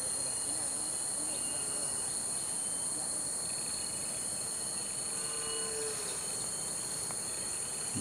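Steady, high-pitched drone of a forest insect chorus, unbroken and even in level.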